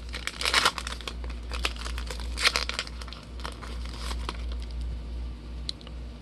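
Foil trading-card pack wrapper crinkling as it is torn open and handled, with irregular small clicks and rustles of the cards.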